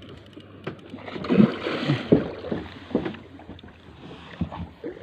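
Water sloshing and slapping against the hull of a small fishing boat at sea, with scattered knocks on the boat. A louder rush of water comes about a second in.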